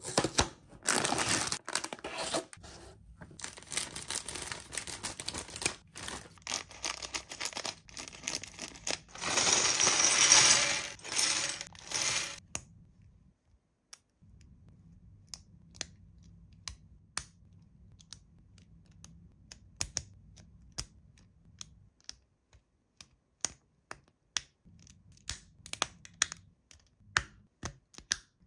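Toy packaging being opened by hand: tearing and crinkling for about the first twelve seconds, loudest about ten seconds in. After that come sparse, light clicks and taps as the parts are handled.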